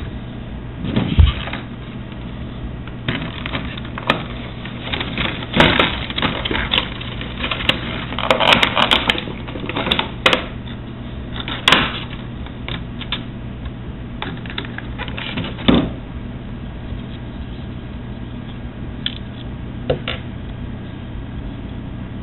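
Handling noises from plastic: irregular clicks, taps and short rustles in scattered bursts, busiest in the first half and sparse near the end, over a steady low hum.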